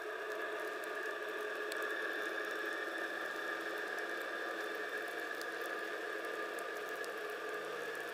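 G-scale model diesel locomotives' electric motors and gearboxes running steadily as they push a snow plow along the track, a level whine of several fixed tones over a hiss, with a few faint clicks.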